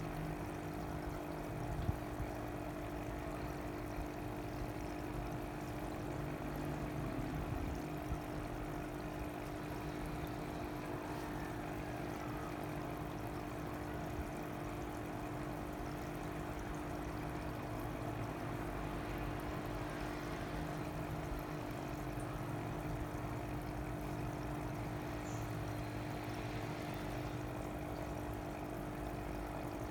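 Water steadily pouring and trickling from fish-tank circulation, with a steady hum from a water pump under it.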